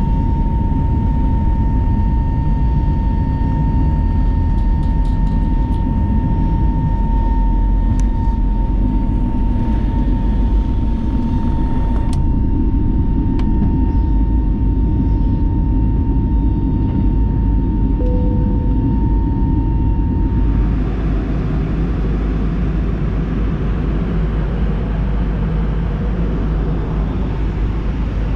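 Steady cabin noise of an Airbus A320neo airliner: a deep rumble with a thin, steady whine on top. About twenty seconds in, the whine stops and the noise turns hissier.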